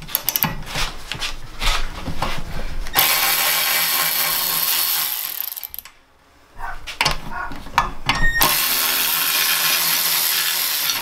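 Cordless electric ratchet spinning out the two 13mm exhaust bolts on a Predator 212 engine, in two runs of a few seconds each with a short pause between. Clicks and knocks of the socket and tool being handled on the metal come before each run.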